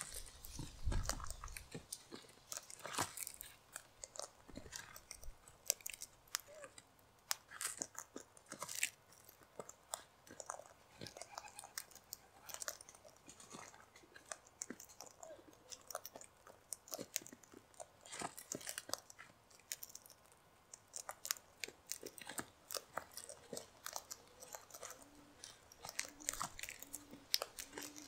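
Sulphur-crested cockatoos cracking and crunching seed in their beaks: a dense, irregular run of sharp cracks and clicks from several birds feeding at once.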